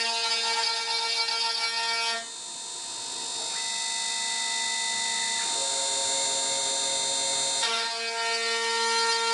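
Background music of sustained, droning chords, the harmony shifting about two seconds in and again near the end.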